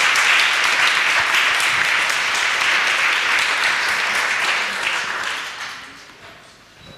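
Audience applauding, a steady clapping that dies away about five to six seconds in.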